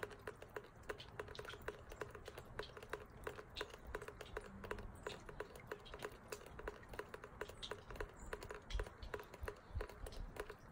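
Water dripping and trickling down a metal link rain chain: a quick, irregular patter of small ticking drips, several a second.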